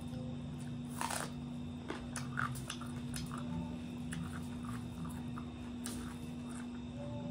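Close-miked eating sounds: chewing and wet mouth clicks and smacks as fish curry and rice are eaten by hand, with a louder crackle about a second in. A steady low hum runs underneath.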